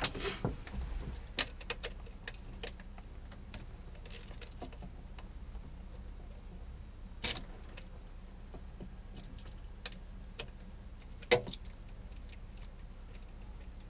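Scattered small metallic clicks and knocks of hand tools and parts being handled on a marine generator's engine, with a sharper knock about eleven seconds in, over a low steady hum.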